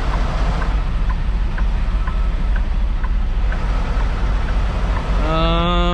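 Diesel engine of a Kenworth T680 semi truck running at low speed, heard from inside the cab while the truck creeps into a parking spot. A short hum comes near the end.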